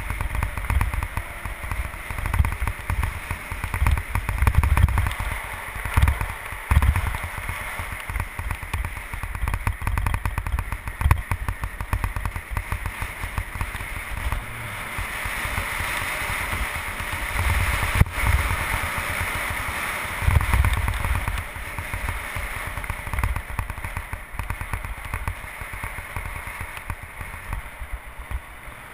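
Wind buffeting and rushing over the microphone of a camera on a moving bicycle, in irregular low gusts over a steady hiss of tyres on asphalt. One sharp click about eighteen seconds in.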